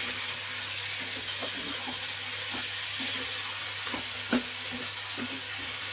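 Mushrooms, capsicum and tomato sizzling in a hot non-stick wok while a spoon stirs the spices through, with soft scraping strokes against the pan and one louder knock about four seconds in.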